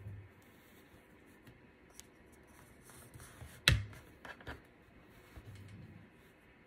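Soft handling noises of hands tying a twine ribbon around a folded cloth napkin on a plate, with one sharp click a little past halfway and a few fainter ticks just after it.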